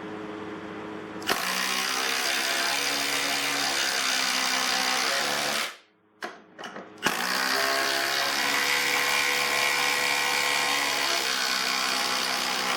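Milwaukee M18 Fuel Gen 3 cordless impact driver hammering lag bolts into a wooden board in two long runs, with a short pause between bolts about six seconds in.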